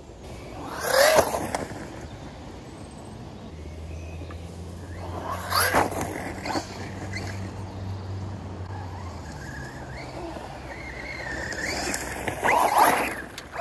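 FTX DR8 1/8-scale brushless electric RC car driving past three times on dirt, its motor whining up and down in pitch with each pass: about a second in, around six seconds in, and near the end.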